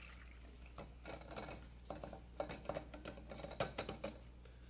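Poached fish and its poaching liquid being poured from a saucepan into a wire sieve over a metal pot: irregular splashing and pattering, with light knocks of metal pans against each other.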